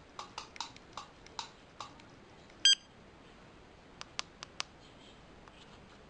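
Small plastic clicks of key-fob buttons being pressed on a Tomahawk 7.1 car alarm, with one short, high electronic beep from the alarm about two and a half seconds in, then a few more clicks.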